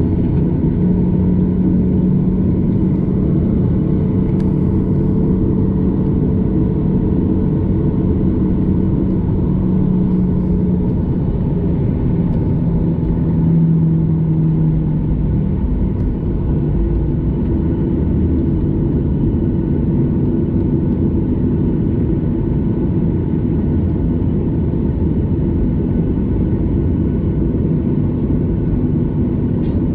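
Boeing 737 jet engines running at low thrust, heard from inside the cabin: a steady rumble with a low hum that dips slightly in pitch and fades about halfway through.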